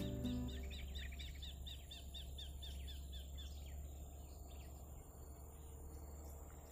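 A bird calling a fast run of short repeated chirps, about five a second, that fades out after about three and a half seconds, over a steady low background rumble.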